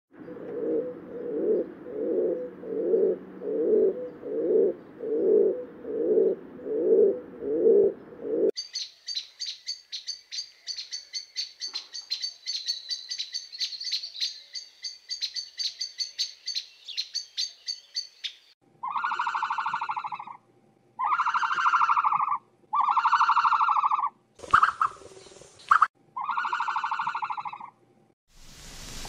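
Animal calls in three different kinds, one after another. First comes a run of low, rhythmic pulsing calls, then fast high-pitched chirping, then five long calls of about a second and a half each.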